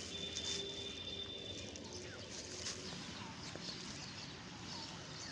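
Faint rural outdoor background with a few scattered short bird chirps, and a faint steady tone for about the first two seconds.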